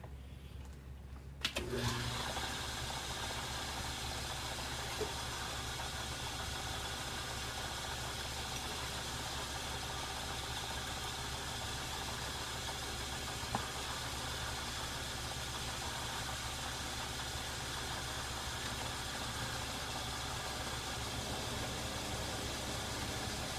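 Metal lathe switched on about one and a half seconds in, then running steadily with an even motor and gear-train drone, while single-point thread cutting is under way; two short clicks come along the way.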